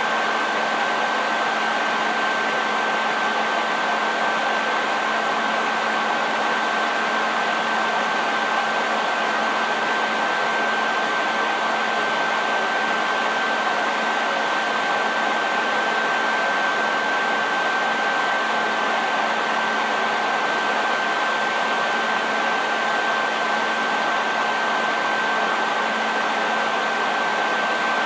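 Hair dryer running steadily: an even airy rush with a constant high whine from the motor and fan, no change in speed or level.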